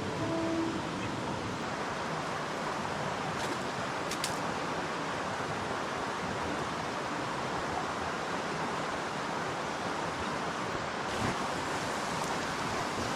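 Steady rush of river water, an even hiss with no change in level.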